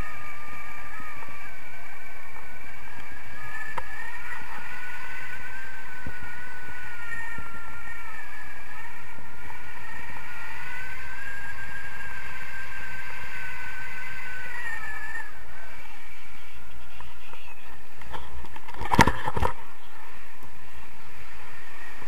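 Steady wind rush over a camera microphone carried in flight under a tandem paraglider, with a wavering whistle for roughly the first fifteen seconds. A couple of sharp knocks come about nineteen seconds in.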